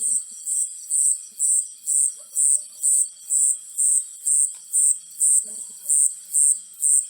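Insect chirping in a steady rhythm, about two high-pitched pulses a second. Faint low calls sound briefly near the start and again about five and a half seconds in.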